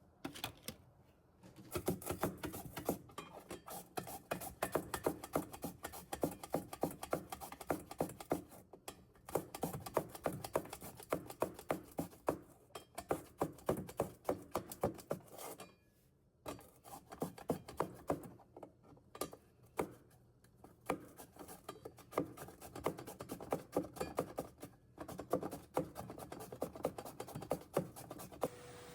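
A rapid, irregular series of light taps and knocks, several a second, broken by short pauses.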